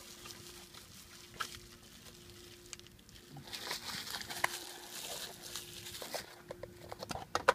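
Rustling of packaging and small clicks as a boxed shift knob is unpacked by hand, with a sharp click near the end.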